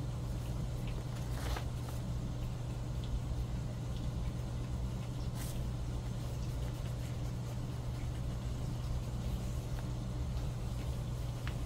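A steady low hum, with a few faint clicks and rubbing from a paint bottle being opened and its dauber drawn across paper.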